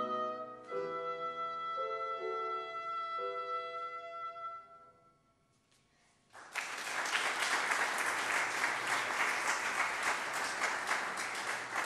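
Oboe and piano ending a slow classical piece, the oboe fading out on a long held note over the piano. After a brief silence, about six and a half seconds in, the audience breaks into steady applause.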